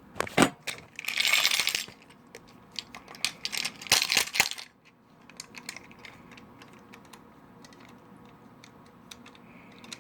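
Metal combination key lock box clicking and clinking as it is handled and its release lever is worked, the lever stuck and not opening even with the right code set. Sharp clicks and two rattling bursts come in the first five seconds, then only faint ticks.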